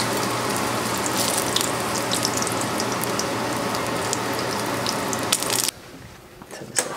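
Fish balls frying in hot oil in a stainless steel pan: a steady sizzle full of crackling pops, with a low hum underneath. It cuts off abruptly near the end, leaving a few light knocks.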